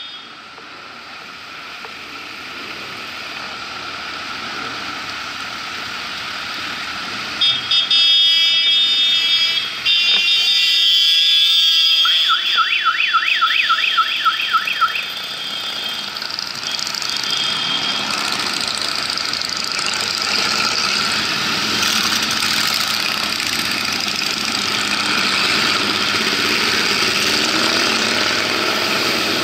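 Engines of a large group of motorcycles passing close by, getting louder. From about 7 seconds in, loud steady horn tones sound over them, followed by a fast warbling siren-like tone of about four wobbles a second for roughly three seconds; after that the motorcycle engines fill the sound.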